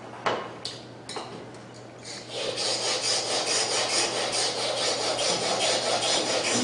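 A chisel knocking a few times as it is set down, then from about two seconds in it is rubbed back and forth on a sharpening surface in quick, even rasping strokes, grinding its edge back to square.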